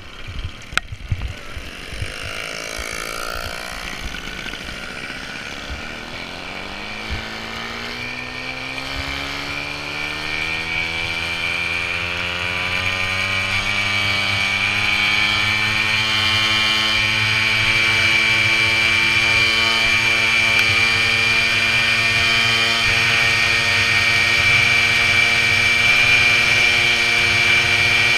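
VéloSoleX moped's small two-stroke engine, a few knocks in the first two seconds, then rising steadily in pitch for about twelve seconds as the bike picks up speed and running steady at speed with a high whine.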